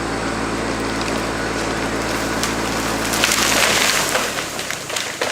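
An engine runs steadily, then about three seconds in a tree trunk cracks and splinters loudly as the engine sound drops away, followed by scattered snaps of breaking wood.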